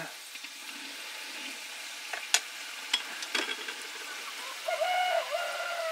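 Sel roti, rings of rice-flour batter, frying in hot oil in a pan with a steady sizzle, and a few sharp clicks. Near the end a long sound slides down in pitch.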